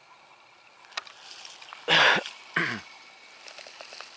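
A faint click, then two short, loud bursts of noise close to the microphone about two seconds in, with a faint hiss behind them.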